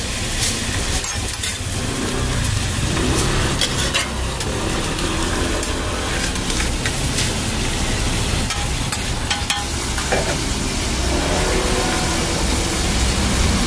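Sausages, an egg and meat frying on a flat-top griddle, sizzling steadily, with a few sharp clicks of metal tongs and a spatula against the griddle, over a low steady rumble.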